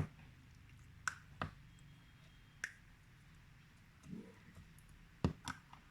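A few scattered light clicks and taps, with quiet stretches between them, as slime-making things are handled.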